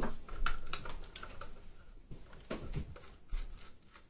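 Irregular light plastic clicks and knocks, about seven, from a heating receiver's plastic cover being prised open and handled on a worktop.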